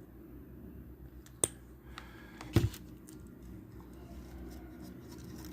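Two sharp clicks about a second apart, small objects or tools handled on a workbench, over a low steady hum.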